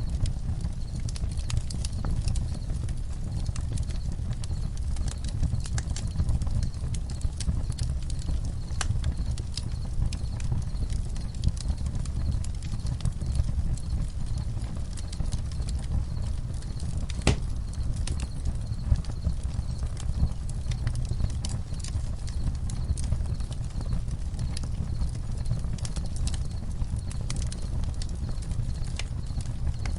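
Campfire crackling and popping at irregular intervals, with one sharp pop about halfway through, over a low steady rumble of the burning fire. Crickets chirp faintly in the background.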